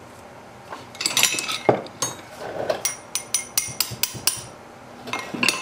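Hammer tapping a wrench on a Maytag Model 72 engine's cylinder-head nut to break it loose: a few clanks about a second in, then a run of about seven sharp metallic taps with a short ring after each, about four a second, and two more near the end. The nuts are crusted and a little rounded, hard to get a grip on.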